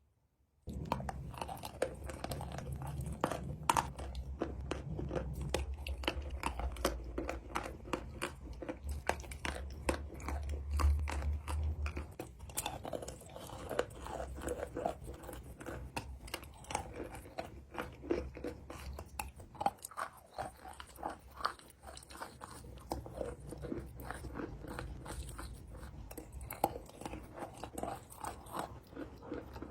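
Close-miked chewing of crunchy chalk: a dense run of sharp crunches and bites, starting about half a second in.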